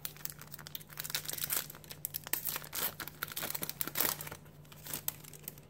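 Pokémon card pack wrapper crinkling and tearing as it is handled and opened: a dense run of quick crackles that stops shortly before the end.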